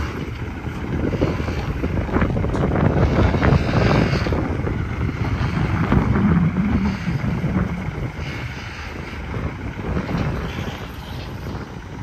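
Heavy dump truck's diesel engine running steadily, with wind rumbling on the microphone.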